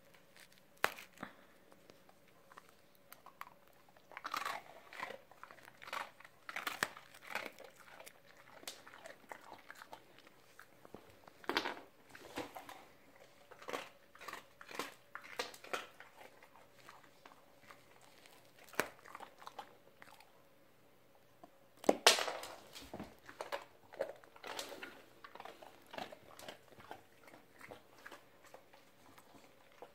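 A dog crunching and chewing hard dog biscuits, in irregular bursts of crunches with short pauses between them. The loudest bite comes about three quarters of the way through.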